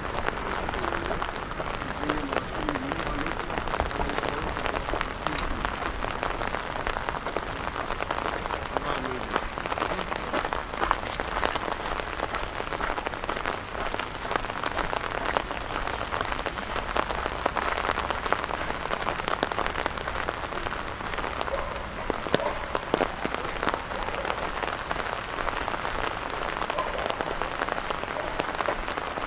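Steady rain falling: a dense, even patter of drops hitting hard surfaces close by.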